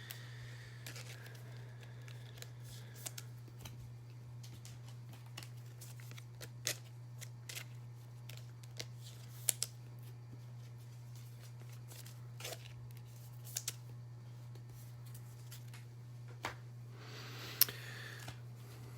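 Trading cards being handled and slid into plastic sleeves: scattered light clicks and taps, with a longer plastic scrape a little before the end. A steady low hum runs underneath.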